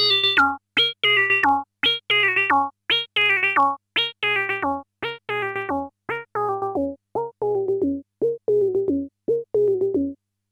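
PolySub, a polyphonic virtual-analogue synth patch on the Rebel Technology Wizard, plays a repeating step-sequenced pattern of short notes, each with a falling filter sweep. From about six seconds in the sound grows duller, and it stops shortly before the end.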